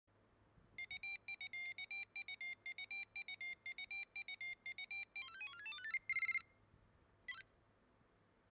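Short electronic intro jingle made of rapid, bright beeping notes, ending in a quick rising run, a held note and a last single blip.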